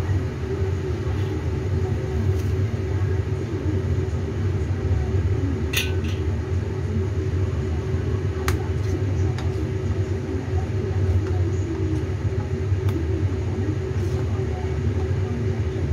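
Steady low rumble from the stove under the wok, with a few sharp clicks scattered through it.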